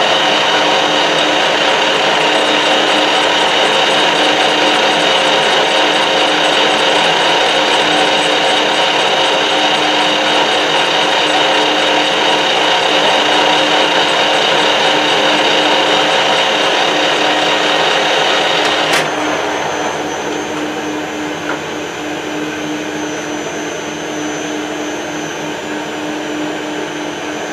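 Metal lathe running steadily with a gear blank turning under a light finishing cut. About two-thirds of the way through there is a click and the higher whine stops, leaving a quieter steady hum.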